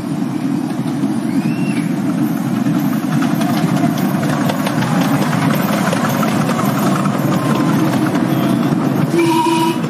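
Miniature railway passenger train running past: a steady rumble of the loaded carriages, with the wheels clicking rapidly over the track as the train goes by. A short squeal sounds near the end.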